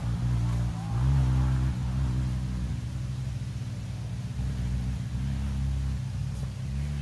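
An engine running at low revs, with a steady low drone that swells a little about a second in.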